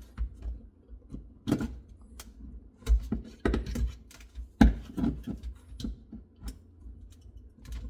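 Thin sheet-metal flashing being bent by hand and crimped with pliers around a wooden lid: irregular crinkling clicks and ticks, with three louder knocks.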